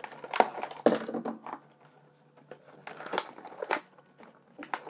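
Plastic blister packaging and cardboard backing of a toy blaster being pulled and torn open by hand: irregular crinkling and crackling, loudest in the first second, with a lull in the middle before more crackles.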